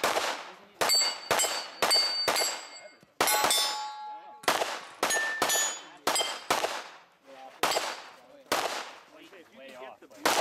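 Pistol-caliber carbine firing shot after shot at steel targets, about a dozen shots spaced roughly half a second to a second apart, each hit followed by the ring of the steel plate. One hit about three seconds in rings longer, with several tones.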